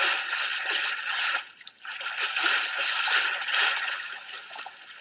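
Heavy splashing and sloshing of pond water as a man thrashes about in it, with a short break about one and a half seconds in.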